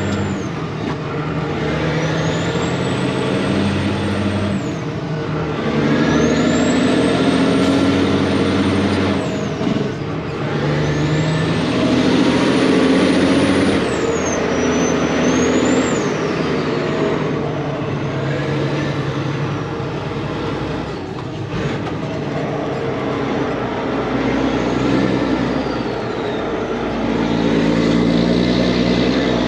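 Truck engine heard from inside the cab, driving and going through gears. The revs climb and drop back several times, and each pull carries a high whistle that rises and falls away.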